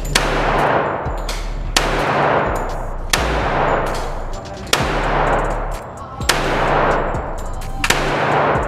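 Gunshots at a shooting range: six single shots about a second and a half apart, each followed by a long echoing ring.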